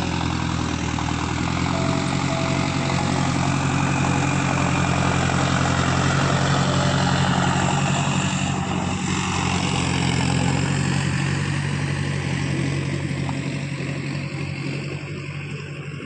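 Tractor engine running steadily as the tractor works the dirt field. It grows louder as the tractor passes close by, about halfway through, then slowly fades.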